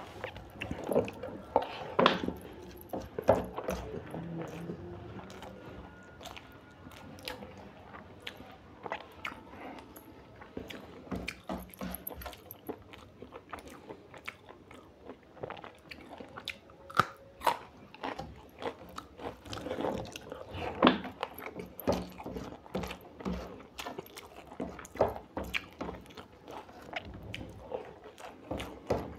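Close-up eating sounds of a person chewing and biting a meal of mutton curry with rice and roti, with irregular wet mouth clicks and smacks and an occasional crunch.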